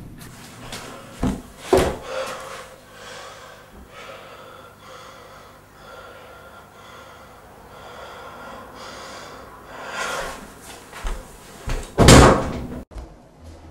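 A door banging in a small room: two sharp knocks a second or two in, quiet room noise between, and a loud bang near the end that cuts off abruptly.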